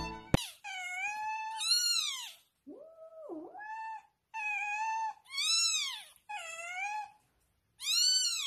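Newborn kitten crying: a run of about seven high, squeaky, arching cries, each under a second long, with one lower call about three seconds in. Loud, repeated crying like this is the sign the newborn is breathing and alive.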